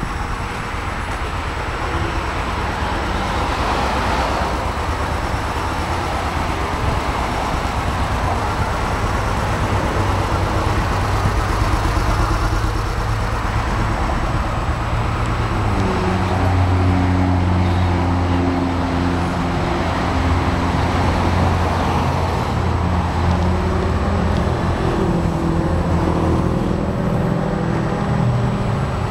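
A motor vehicle engine running steadily over a continuous rushing noise. Its low, even hum grows stronger from about halfway through.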